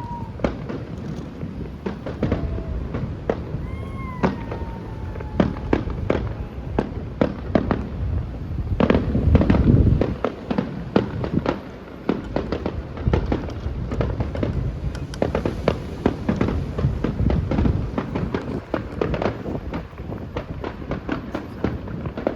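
Fireworks display: a steady run of booms and crackling bangs, busiest about nine to ten seconds in.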